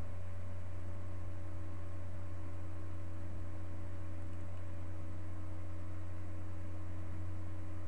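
Steady low electrical hum on the recording, with a few faint steady higher tones above it and no change in level.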